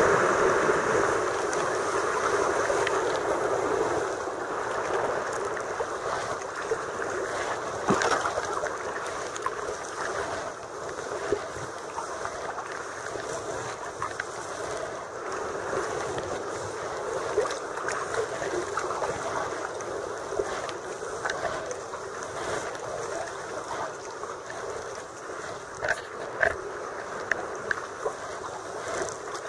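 Sea water washing and sloshing against rock in a narrow sea gully, with small splashes and drips from kayak paddle strokes. The wash is loudest for the first few seconds, then settles to a steady lapping with occasional sharp splashes.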